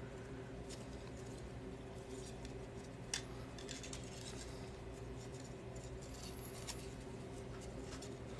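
Faint handling sounds: jute twine rustling and the small rings of a paperclip chainmail sample clicking as a tag is tied on, with one sharper click about three seconds in. A steady low hum runs underneath.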